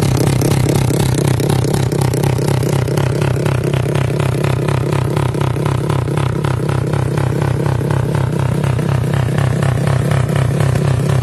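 A Honda Wave/Karisma single-cylinder four-stroke engine, enlarged to 350 cc, running steadily and loudly through a racing exhaust while it warms up, with a rapid, even firing beat.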